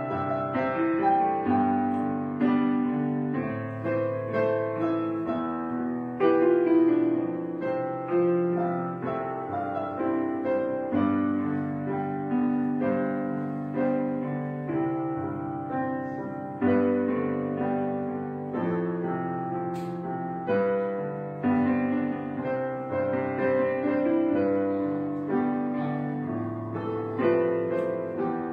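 Piano music: notes and chords are struck one after another at an unhurried pace, each left to ring and fade.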